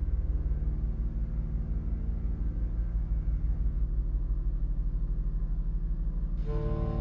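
Deep electronic drone made of several steady low tones, with a fast flutter at the very bottom. About six and a half seconds in, brighter, higher tones join it.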